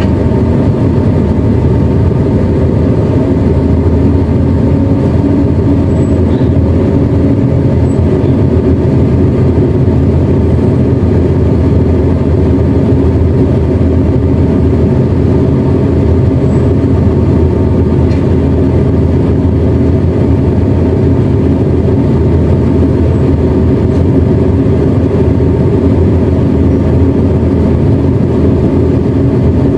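Tugboat's diesel engine running steadily, an even, loud low drone heard on deck close to its exhaust stacks.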